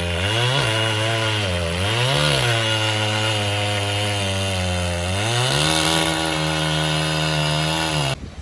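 Two-stroke chainsaw running hard with its pitch swinging: two quick revs, a stretch at lower pitch, then a climb about five seconds in to a higher pitch held until it cuts off abruptly.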